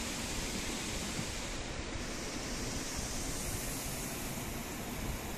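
Water jets of an automatic car wash spraying over the car, heard from inside the cabin as a steady rushing hiss of water on the glass and body.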